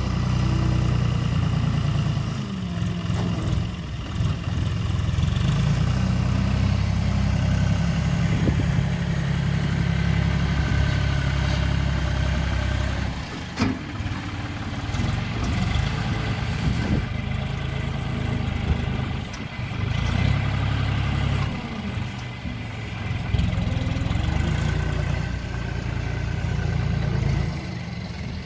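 John Deere tractor's diesel engine running under loader work, its speed rising and falling as the front loader is worked.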